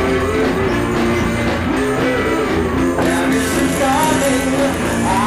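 Background rock music with guitar and a singing voice.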